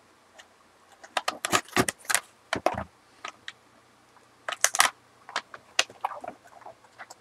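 A cardboard trading-card box being cut and pried open with a knife. The blade and cardboard make irregular sharp scrapes and clicks, in clusters about a second in and again around five seconds in.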